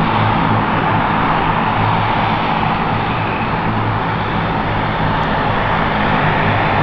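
De Havilland Canada DHC-8 Dash 8's twin Pratt & Whitney Canada PW100-series turboprops running steadily as the aircraft taxis: a low propeller hum under a constant turbine hiss.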